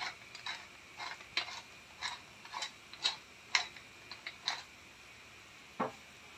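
Wooden pepper mill being twisted to grind black pepper, giving a run of short clicking crunches about twice a second that stops about four and a half seconds in. A single duller knock follows near the end.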